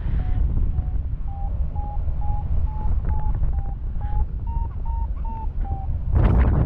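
Paragliding variometer beeping: short tones about two or three a second, rising in pitch and then dropping a little, the sign that the glider is climbing in lift. Wind noise on the microphone throughout, with a louder gust near the end.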